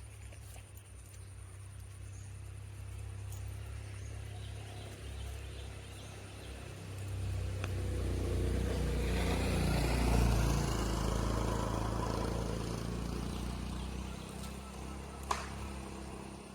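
A motor vehicle passing by, its engine sound swelling to a peak about halfway through and then fading, over a low steady hum, with a single sharp click near the end.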